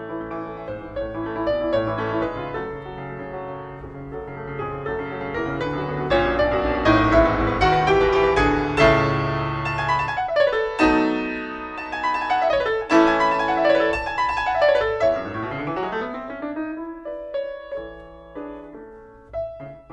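Background piano music, fuller and louder in the middle and thinning out toward the end.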